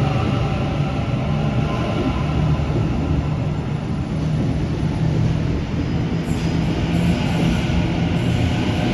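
Electric suburban passenger train moving through the station, a loud, steady rumble with a low hum.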